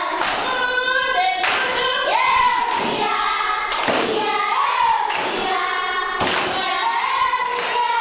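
A group of voices singing together in long, gliding phrases, with a thud keeping time roughly every second and a quarter.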